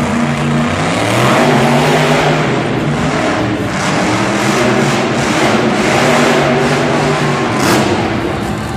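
Grave Digger monster truck's supercharged V8 engine revving, its pitch rising and falling several times as the truck drives across the arena floor.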